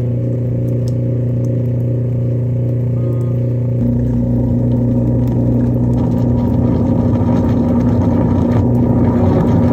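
Garbage disposal running with two cleanser tablets in it: a steady motor hum that turns louder and rougher, with churning noise, about four seconds in.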